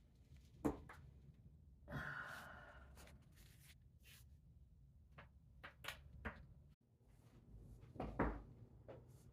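Back cracking: a few sharp pops from the spine, one about a second in, a couple around six seconds, and a louder thud with pops near the end, with a breathy sound of about a second around two seconds in.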